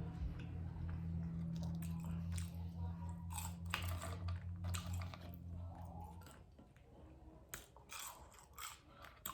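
Close-miked chewing of food, with wet mouth clicks and smacks. A low steady hum underneath stops about six seconds in.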